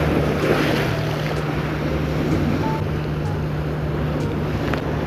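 Waves and wind at sea buffeting the microphone, over a steady low engine hum.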